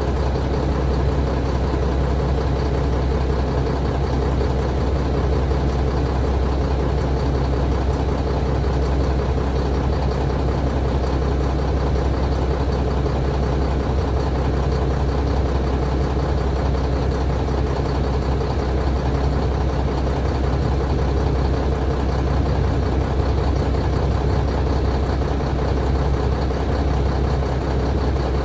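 Mack Granite truck's diesel engine running steadily, a low drone that holds an even pitch and level throughout.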